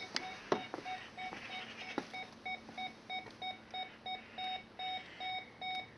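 Optima XM alarm control panel sounding its entry-delay warning: a steady run of short, even beeps, about two to three a second, counting down after a door contact has been opened. A few sharp clicks come in the first two seconds.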